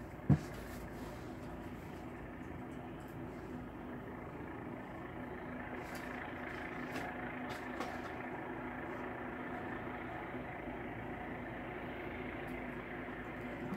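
A steady mechanical hum with a faint low drone, and one sharp click about a third of a second in.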